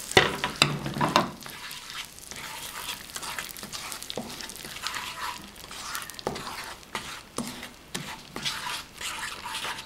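Wooden spatula stirring and scraping through bubbling caramel of melted sugar and butter in a frying pan, over a steady sizzle. The strokes are loudest in the first second or so, then come as lighter scrapes about once a second.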